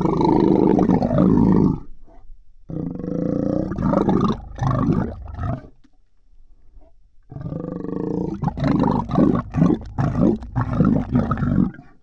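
Monster vocal sound effects: three growling roars. The first is already sounding at the start and stops before two seconds; the second, about three seconds long, comes in pulses; the third starts about seven seconds in and breaks into quick, choppy pulses toward the end.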